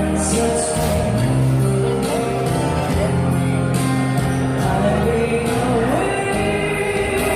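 Music with a singing voice and a steady beat.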